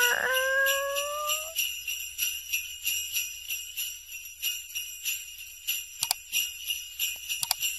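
Sleigh bells jingling in a steady shaken rhythm. A short rising tone sounds at the start, and two sharp clicks come near the end as the like and subscribe buttons are pressed.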